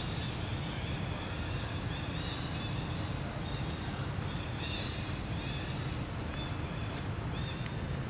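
Outdoor ambience: a steady low rumble like wind on the microphone, under a string of short high chirps that repeat every half second to a second. A couple of faint clicks come near the end.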